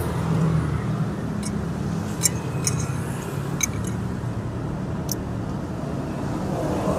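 Steady rumble of road traffic, with a few light clinks of a metal spoon and fork against a ceramic plate between about one and a half and five seconds in.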